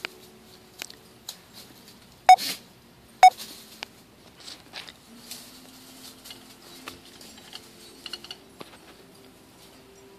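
Dogs playing: two sharp, loud yips about a second apart, among light rustling and small clicks.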